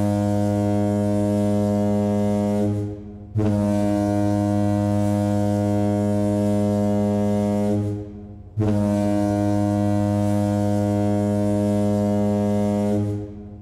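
Deep ship's horn sounding long, steady blasts: one fades out about three seconds in, and two more follow, each starting sharply and lasting about four to five seconds.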